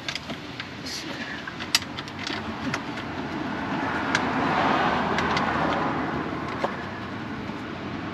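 Light clicks and taps of plastic underbody trim and its clips being pressed into place by hand, several in the first few seconds with one sharper snap. A passing vehicle's noise swells about halfway through and fades again.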